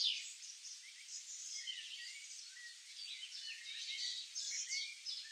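Several birds chirping and trilling in short high calls over a faint background hiss.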